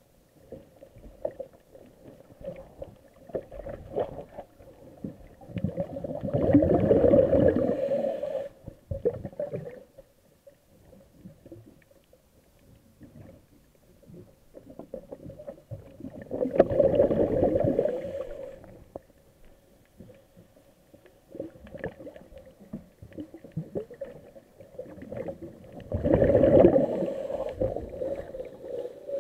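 A diver's breathing regulator heard underwater: three long rushing, gurgling bursts of exhaled bubbles about ten seconds apart, with faint crackling in between.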